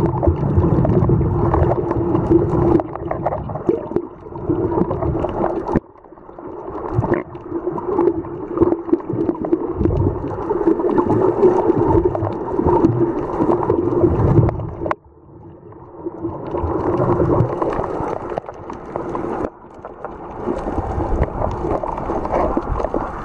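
Muffled water noise picked up by a camera held underwater, with gurgling and a steady low hum underneath. The sound drops away abruptly several times.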